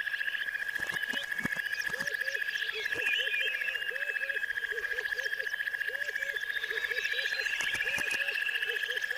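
Frogs calling: a steady, rapidly pulsing high trill throughout, with short low calls repeating about two or three times a second, and birds chirping over it.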